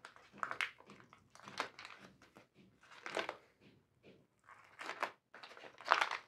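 Paper mailer envelope crinkling and rustling in short, irregular bursts as it is cut and pulled open by hand.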